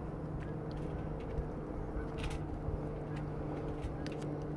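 Foil-faced fireproof adhesive sheet crinkling and clicking as it is handled and pressed onto a wooden cover, in short scattered snaps. Under it runs a steady low hum.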